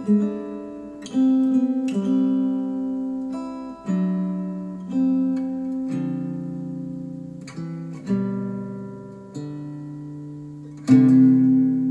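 Acoustic guitar music played back through Focal Chora 806 bookshelf speakers driven by a Cambridge Audio CXA81 amplifier: slow strummed chords, each left to ring and fade, with a louder chord near the end.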